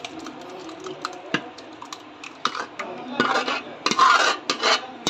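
Metal spoon scraping thick custard out of a dish into a bowl, with light clinks of metal on the dish. A few scattered clicks at first, then quicker, louder scrapes over the second half.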